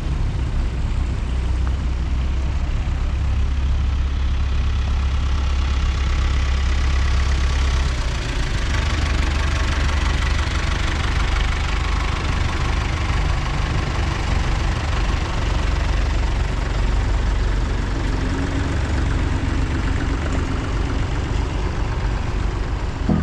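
A procession of vintage tractors, an old jeep and a Land Rover driving past close by, their engines chugging in a loud, steady low drone that changes as one vehicle gives way to the next, about eight seconds in.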